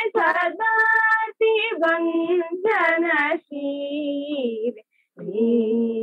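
Two young women singing a Carnatic kriti in raga Saveri together, unaccompanied, in phrases with wavering, ornamented pitch. The sound comes over a video call and cuts off sharply between phrases, falling silent for about half a second near the end.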